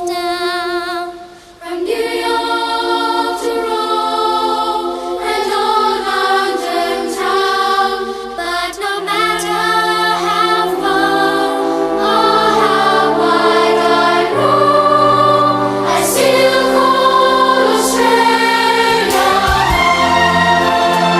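Music with a choir of voices singing in held, wavering notes; a low bass part comes in about nine seconds in.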